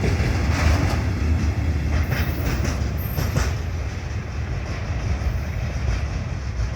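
Train passing over a level crossing: a steady low rumble with a few wheel clacks over the rail joints, easing off slowly toward the end.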